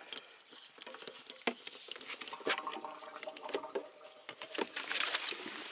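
Petrol siphoned from a car's fuel tank through a hose, pattering into a plastic canister, with scattered small clicks and knocks.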